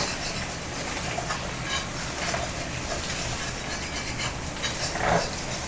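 Food sizzling steadily in hot oil in a pan, with a few light clinks of a utensil against the pan and a louder knock about five seconds in.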